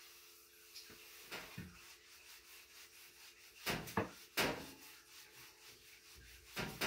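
Floor being cleaned by hand: short rubbing, scraping strokes, loudest in a quick run of three about four seconds in, with another near the end.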